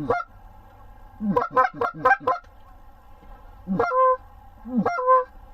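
Geese honking: one honk, then a quick run of about six honks, then two more near the end, each breaking from low to high.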